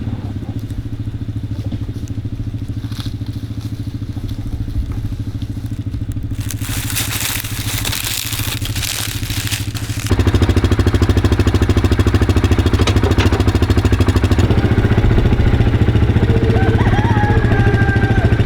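Small gasoline engine of a log splitter running steadily, with a stretch of cracking, crushing noise a little past the middle. The engine gets suddenly louder about ten seconds in.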